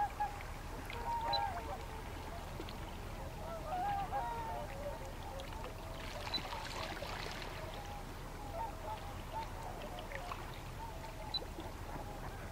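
Waterfowl calling: many short, scattered calls with a brief rush of noise about six seconds in.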